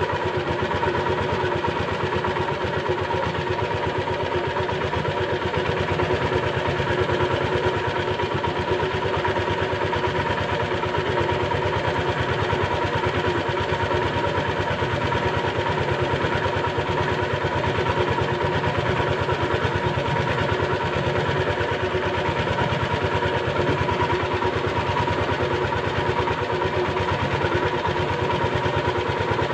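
Small wooden fishing boat's engine running at a steady speed while trolling, a constant hum whose pitch does not change.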